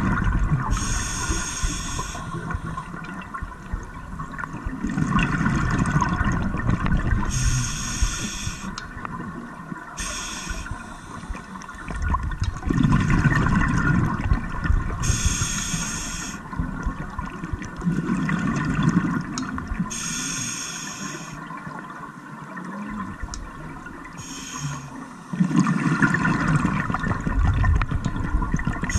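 Scuba diver breathing through a regulator: short hissing inhalations alternate with rumbling bursts of exhaled bubbles, about one breath every six seconds.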